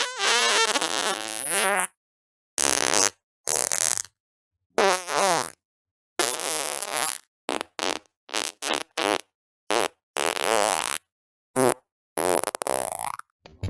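A string of separate farts cut one after another with dead silence between: a long rippling one of about two seconds at the start, several of about half a second to a second, a quick run of short blasts around eight to nine seconds in, and another long one near the end.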